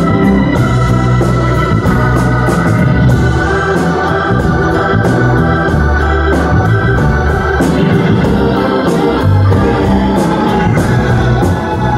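Live band playing a soul-rock song, with Hammond organ to the fore over electric guitars, bass and a steady drum beat.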